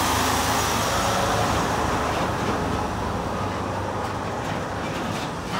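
Semi truck pulling a shipping-container trailer passing close by, its engine and tyre noise slowly fading as it moves off, with a few light knocks near the end.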